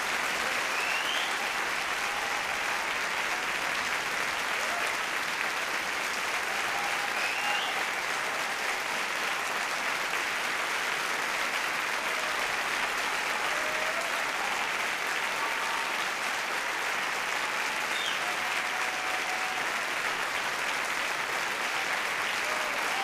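A large theatre audience applauding steadily, many hands clapping at once, with a few faint voices calling out over it.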